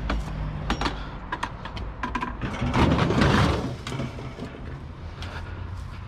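Junk being handled and moved: several sharp knocks and clicks, then a louder noise lasting about a second, about three seconds in, over a steady low hum.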